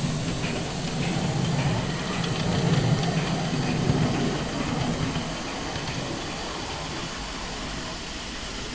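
Winson live-steam miniature Britannia class locomotive running past with steam hissing over a low rumble. The sound is loudest a few seconds in and fades as the engine moves away.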